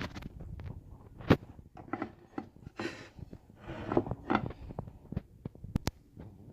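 Scattered sharp clicks and knocks with short rustling noises between them, the loudest click about a second in.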